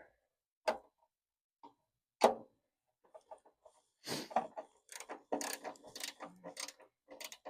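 Clicks and small rattles of a screw being tightened into a pickup's park light bracket: two sharp clicks, then a busy run of little ticks and clatters from about four seconds in.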